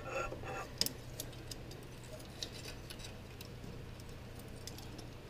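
Scattered light metallic clicks and ticks as Vise-Grip locking pliers are handled and set on an exhaust manifold flange nut, to hold the nut from turning. The clicks stand out faintly over a steady low hum.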